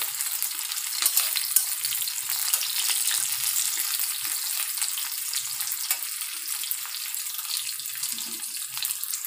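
Onions, garlic, cashews and whole spices sizzling in hot oil in a metal kadhai, with scattered clicks and scrapes from a metal spatula stirring them.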